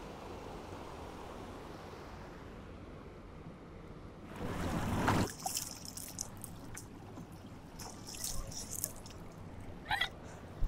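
River water rushing and trickling over rocks and small cascades, steady at first. About four seconds in there is a louder noisy burst, followed by scattered clicks and crackles.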